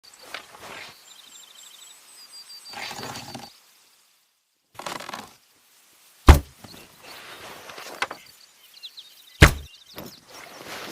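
Houyi recurve bow being shot: two loud, sharp thumps about three seconds apart, with softer rustling and scraping of handling between.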